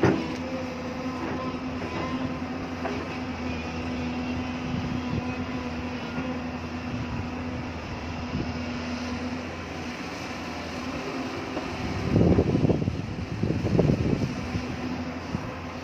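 Excavator's diesel engine running steadily with a held hum, with a few small knocks. About twelve seconds in comes a louder couple of seconds of rough crashing and scraping, typical of the bucket working rock.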